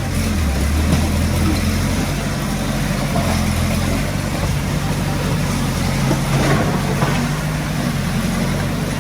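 Diesel engine of heavy earthmoving equipment running steadily with a low drone, its note shifting slightly a couple of times.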